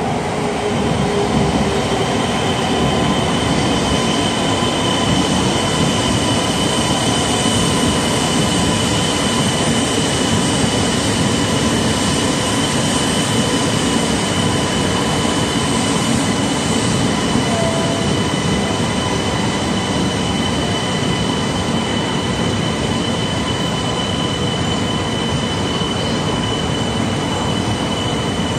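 E2 series Shinkansen train pulling into the station and slowing as its cars roll past, a steady loud rumble of wheels on rail with a thin, steady high tone over it from about a second in.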